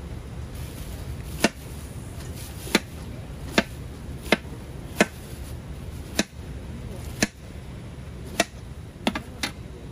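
A large kitchen knife trimming the sides of a peeled pineapple, each downward slice ending in a sharp knock of the blade on the plastic tray: about ten knocks at uneven intervals, two close together near the end. A steady low rumble runs underneath.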